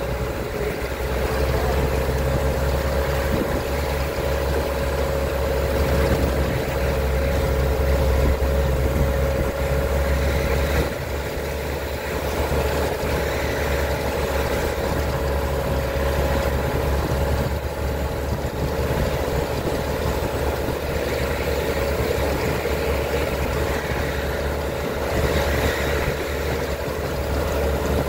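Open-top jeep's engine running steadily as it drives along, a low rumble with a steady whine held above it.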